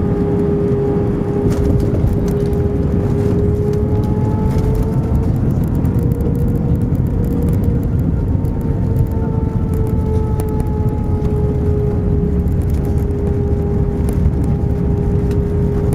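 Airbus A319 cabin noise while the airliner rolls on the ground after landing: a steady low rumble under the jet engines' whine, which holds one pitch that drifts slightly up and back down.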